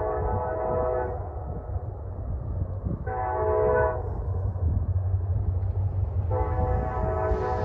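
Distant freight locomotive air horn sounding a multi-tone chord in a crossing-signal sequence: a long blast ending about a second in, a short blast around three seconds in, and the final long blast starting near the end. A low rumble of the train runs underneath, and distance has dulled the horn's highs.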